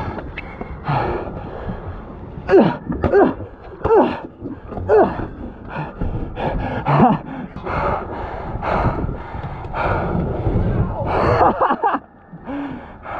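A man's gasps and groans: a string of short, falling vocal cries without words, about one every second, several in a row.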